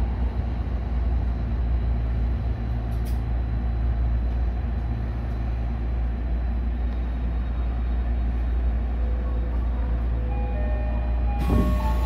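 Tokyo Metro 16000-series subway train running, heard from the driver's cab: a steady low rumble and hum. Near the end a few steady motor tones come and go in steps, and a sudden hiss of air starts just before the end.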